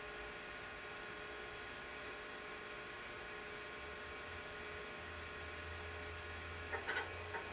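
Commodore 900 computer running, a steady hum with several steady tones. A few short clicks come near the end.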